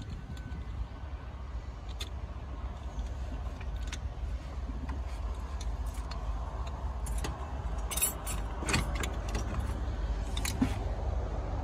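Light metallic clinks and rattles as a turbocharger is worked loose from its mountings in an engine bay, bunched about two-thirds of the way in, over a steady low rumble.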